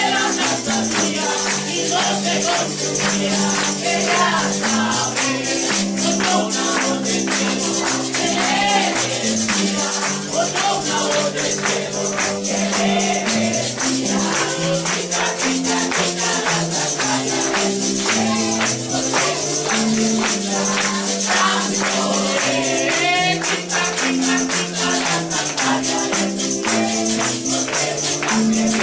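Congregational worship music: voices singing together over a steady, fast tambourine beat.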